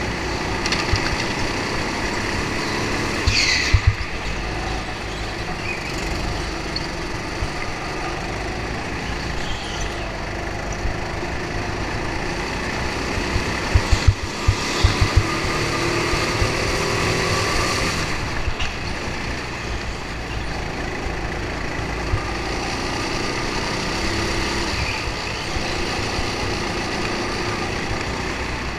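Go-kart running at racing speed, heard from on board: a steady mechanical drone mixed with rushing noise. There are clusters of sharp knocks and thumps about four seconds in, and again around fourteen to fifteen seconds in.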